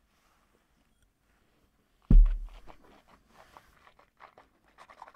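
A tulip-shaped whisky nosing glass set down on the table about two seconds in: one sudden heavy thump. After it comes a string of faint small clicks.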